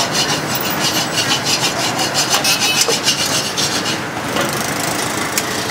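Flat metal spatula scraping rapidly back and forth across a steel wok while stirring sauce, in quick repeated strokes that stop about four seconds in.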